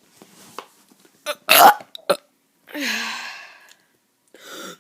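A child forcing out burps: a sharp loud burst about a second and a half in, then a longer burp about a second long that drops in pitch, and a short one near the end.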